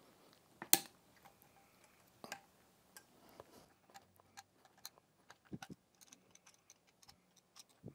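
Light metallic clicks and ticks of a screwdriver turning out the grip screws of a Colt-style single-action revolver, with one sharper click about a second in and many small irregular ticks after.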